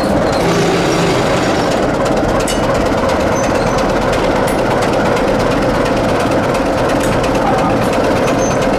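Diesel locomotive running steadily as it moves along the track, with light clicks from the wheels on the rails.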